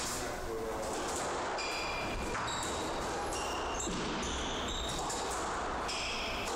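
Squash rally: the ball smacking off rackets and court walls, with short high-pitched squeaks of shoes on the wooden court floor.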